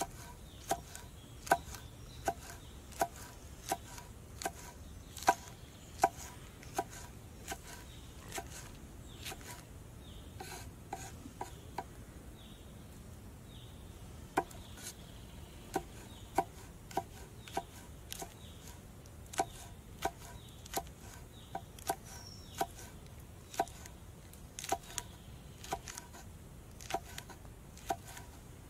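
Kitchen knife slicing green chili peppers on a wooden cutting board: a sharp knock of the blade on the board about every three-quarters of a second, with a pause of about two seconds near the middle.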